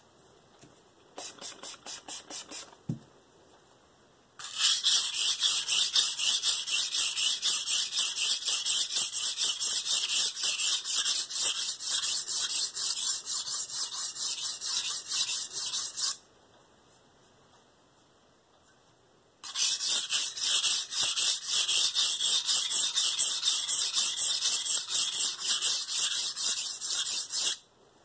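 Steel santoku blade scraped in rapid back-and-forth strokes on a wet Shapton Pro 320-grit whetstone lubricated with soapy water, a rasping grind. A short, quieter run of strokes comes first, then two long runs separated by a pause of about three seconds. This is coarse grinding of a dull edge to work up a burr.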